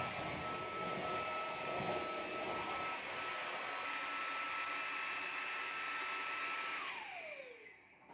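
Devanti 250 W cordless stick vacuum running with a steady high motor whine. It is switched off about seven seconds in, and the whine falls in pitch as the motor spins down.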